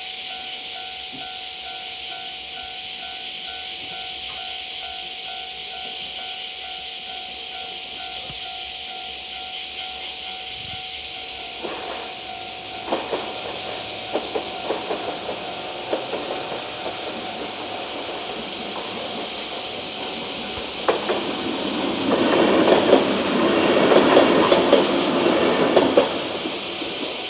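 Level-crossing alarm ringing with steady, pulsing tones over a steady high hiss, as a two-car 103 series electric train approaches. Wheel clicks over the rail joints begin about halfway through, then the train passes with a loud rush of rattling wheels near the end.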